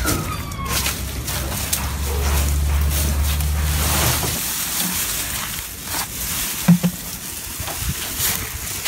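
A low steady rumble that stops about halfway. After it, dry weeds and brush rustle and crackle as they are handled, with a sharp knock a little after two-thirds of the way in.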